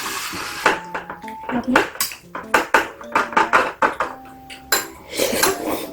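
Cutlery clinking and scraping against bowls and dishes during a meal: a string of separate sharp clicks and knocks.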